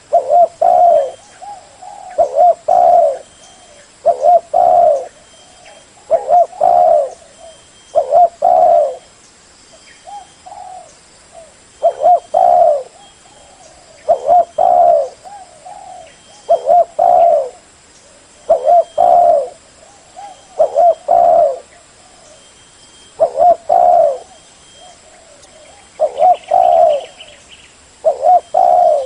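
Spotted dove cooing loudly and close. It repeats a short phrase of two or three low coos about every two seconds.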